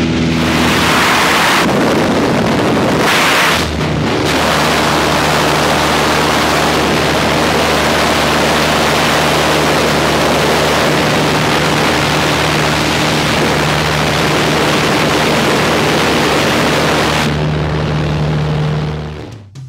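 Small propeller plane's engine droning steadily, with heavy wind rushing in through the open jump door. The sound fades out just before the end.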